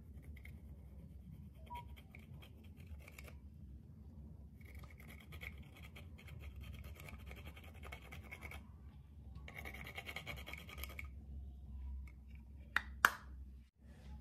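A thin tool scraping and crumbling pressed eyeshadow powder in a plastic compact, in three bouts of rapid fine scratching. Near the end come two sharp taps, the second the loudest.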